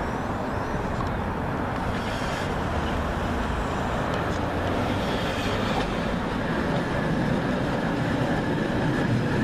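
Hi-rail pickup truck running along a railroad track, a steady rumble of its engine and rail guide wheels on the rails, growing a little louder near the end as it approaches.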